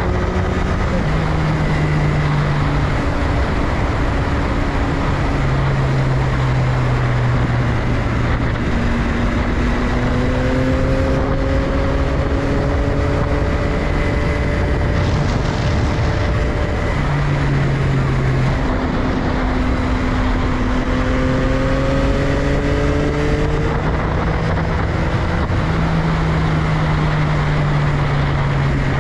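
2022 Yamaha XSR900's CP3 inline three-cylinder engine running at a steady ride, its note holding and slowly rising and falling. Heavy wind rush on the microphone runs under it throughout.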